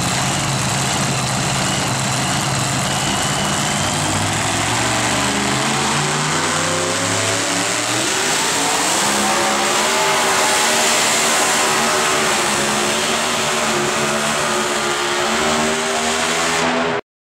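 Supercharged engine of a super modified two-wheel-drive pulling truck, running at low revs, then from about four seconds in rising in pitch to full throttle and holding high as it drags the weight-transfer sled down the track.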